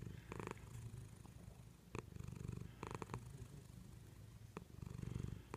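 Domestic cat purring steadily, the purr swelling with each breath about every two and a half seconds. A few faint clicks are heard.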